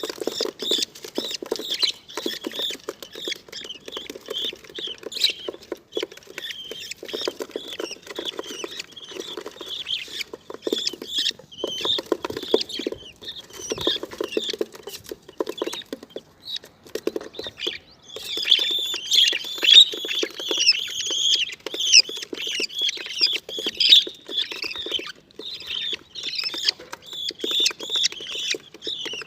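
Budgerigars chirping and chattering in fast, high-pitched calls mixed with scratchy clicks, busier and louder from about two-thirds of the way in.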